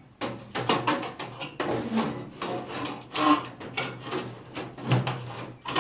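Sheet-metal wiring cover of a fluorescent light fixture scraping and knocking as it is pushed up into the fixture housing over the wires, a string of irregular rubs and sharp clicks.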